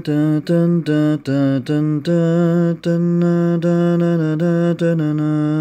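A solo male voice singing the opening melody of a Pentecost hymn without words: a run of short, separate notes in the first two seconds, then longer held notes.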